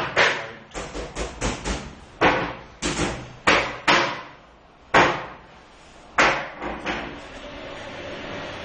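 Irregular sharp knocks and bangs, about fifteen over seven seconds, each ringing briefly in a bare, hard-walled room. A steadier hum takes over near the end.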